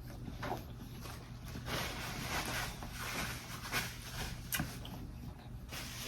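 Close-miked eating sounds: chewing with wet mouth smacks and short clicks, with a longer stretch of noisy chewing about two seconds in.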